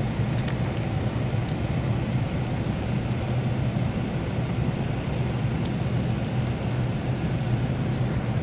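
Steady low mechanical drone of unseen machinery running in the background. A few faint crackles as blue masking tape is peeled off a fitting, mostly in the first couple of seconds.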